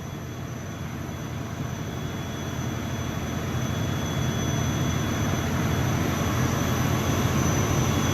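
Caterpillar biogas gas engine running steadily, a dense low mechanical drone that grows gradually louder. It is misfiring on spark plug A4, which makes its power output swing.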